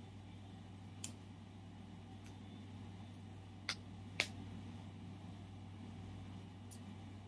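Handling of a plastic toy capsule and its packaging: a few sharp clicks over a faint steady low hum, the loudest two about half a second apart around four seconds in.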